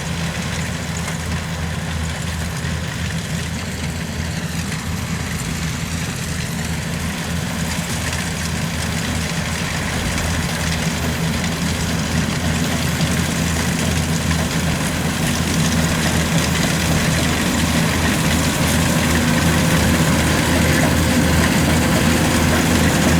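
Kubota DC-93 combine harvester's engine running steadily with a low hum, slowly growing louder.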